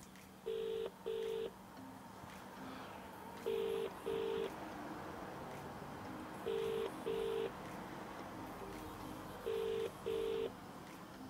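Telephone ringing tone played through the Blitzwolf BW-F2 Bluetooth speaker while an outgoing call rings out: British double-ring 'ring-ring' beeps, four pairs about three seconds apart.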